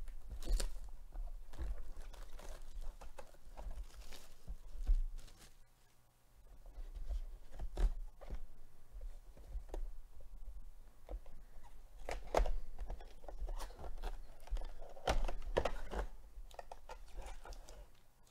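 Shrink-wrap being torn off a 2021 Panini Absolute football card box and the cardboard box opened and handled: irregular crinkling, rustling and light cardboard knocks, with a brief lull about six seconds in.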